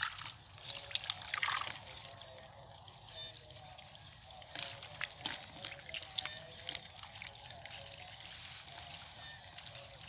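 Hands working in a shallow muddy water hole: wet squelches, small splashes and trickling water, in short irregular bursts.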